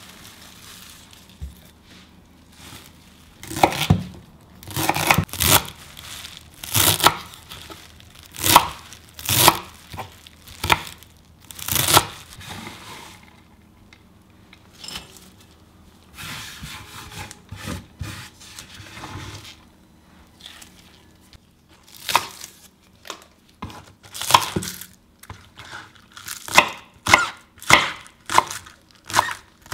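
Chef's knife chopping fresh parsley on a wooden cutting board, crisp single cuts about once a second, then after a quieter stretch in the middle, faster slicing through green onions, about two cuts a second.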